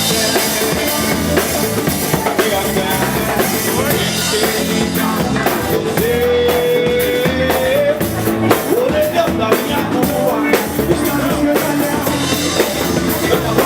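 Live samba-rock band playing an instrumental passage, with the drum kit keeping a steady beat. A long held melody note slides up near the middle.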